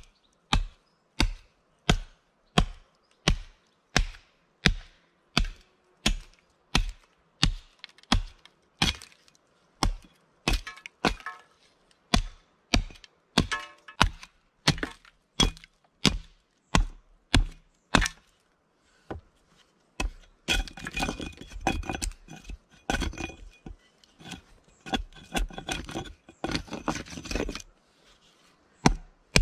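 Hatchet chopping into an upright split log to hew it, sharp blows about one and a half a second. After a short pause about two-thirds of the way in comes a flurry of quicker, lighter strikes with some ringing.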